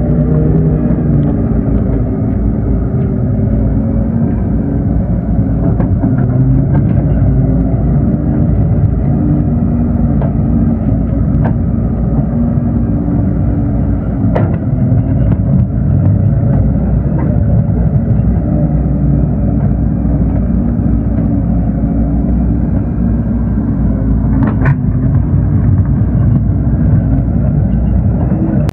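Excavator's diesel engine running steadily, with a few short sharp knocks, the clearest about halfway through and near the end.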